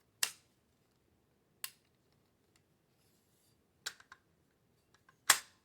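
Sharp clicks and snaps of AR-15 rifle parts being worked by hand: four main clicks a second or more apart, with a smaller one just after the third, and the loudest near the end.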